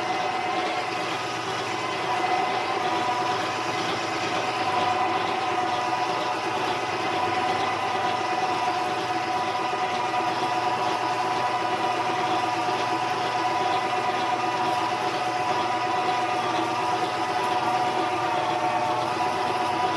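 Harbor Freight mini lathe running steadily, its motor and gears giving an even whine, while a 31/64 drill feeds through aluminum stock.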